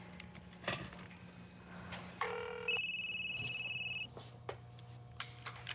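Mobile phone electronic tones: a short low beep about two seconds in, then a high, steady electronic tone held for about a second and a half. There are a few light clicks around them.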